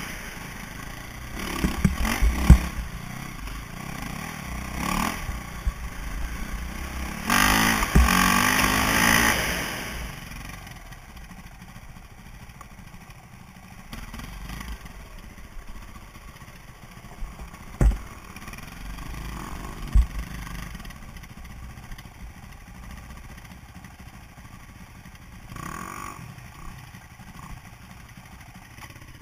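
KTM enduro dirt bike engine under the rider, revving up hard about seven seconds in, then running quieter at low revs for the rest. Sharp knocks and clatter from the bike jolting over roots and rocks on the trail.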